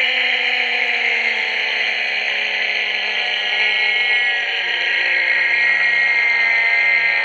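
Creature sound effect: a long, steady, whining screech with many layered tones. Its lower tones slowly sink in pitch.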